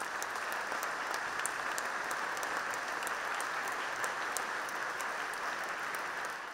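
Audience applauding steadily after a chamber orchestra and choir performance.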